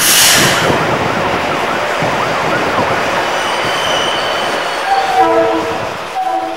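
FL9 diesel locomotive approaching on jointed track work with a steady rumble of engine and wheels, then two short blasts of its horn near the end.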